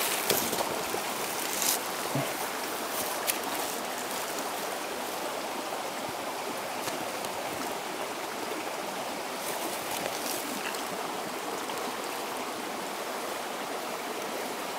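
Small mountain creek running steadily over rocks, with a few faint clicks in the first few seconds.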